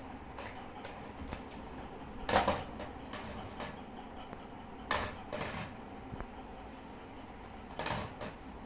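A few separate knocks and clatters of a hollow plastic toy bumping against a stone floor, the loudest about two seconds in and a pair near the end.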